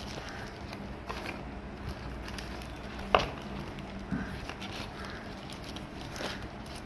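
Light handling of a smartphone box's paper leaflets and cardboard insert: faint rustles and small clicks, with one sharper click about three seconds in, over a steady low hum.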